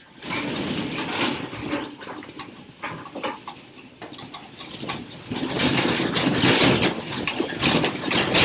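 A classroom shaking in an earthquake: a rumble with a constant clatter and knocking of desks, chairs and fittings. It starts suddenly and grows louder about five seconds in.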